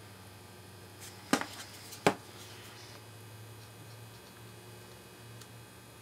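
Small parts of a Master 175 four-digit combination lock clicking against each other as they are pressed and wiggled to fit back together: two sharp clicks under a second apart, a little over a second in. A low steady hum runs underneath.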